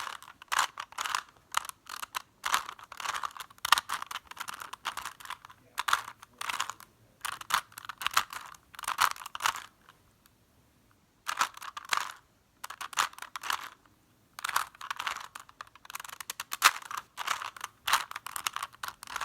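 Plastic Rubik's cube being turned over and over, its layers clicking and scraping in quick runs broken by short pauses.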